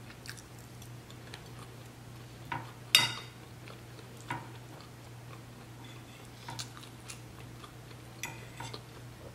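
Metal fork clicking and scraping against a plate during eating: scattered light clicks, one sharper click about three seconds in, over a low steady hum.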